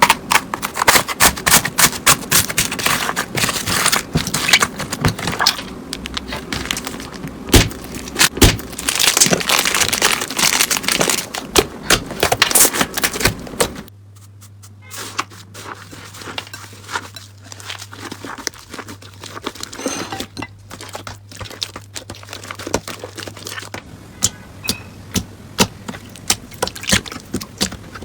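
Slime being squeezed and pressed by hand, a dense run of crackling clicks and pops. About halfway through it changes abruptly to sparser, quieter clicks over a low steady hum.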